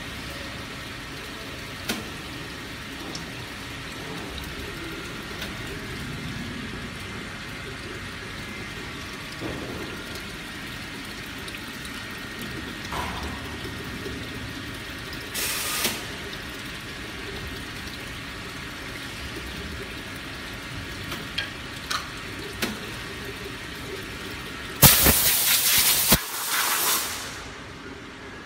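Steady hiss of PVC coaster-making machinery, with a few light clicks and knocks. Near the end come two loud noisy bursts, each about a second long.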